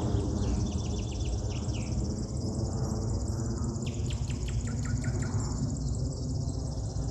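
Wild birds singing: short runs of quick repeated notes, one about half a second in and another around four seconds in, over a steady high insect trill and a low rumble.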